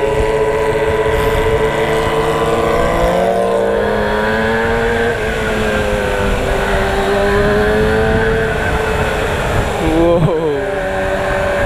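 Kawasaki ZX-6R inline-four motorcycle engine running at road speed, heard from the rider's position with wind rushing past. The engine pitch climbs about three seconds in, eases back and holds, then drops and rises quickly near the end.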